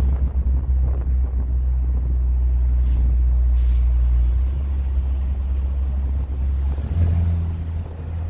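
Hyundai Tucson 2.0's exhaust running without its rear muffler, a steady deep drone. Two short hisses sound about three seconds in, and the engine note steps up briefly about seven seconds in.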